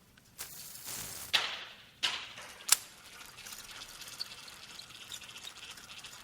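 Fishing rod and reel in use. First a swish that falls in pitch, then two sharp clicks well under a second apart. After that the reel gives a steady, fine rattling clicking.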